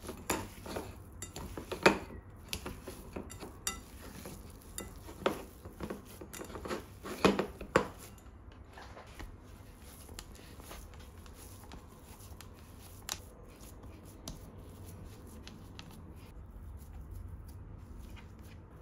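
Hands kneading raw minced beef in a ceramic bowl: irregular squelches with clicks and knocks against the bowl, busiest and loudest in the first eight seconds. After that, only faint pressing and patting as the meat is shaped into a patty on a wooden board, with an odd click.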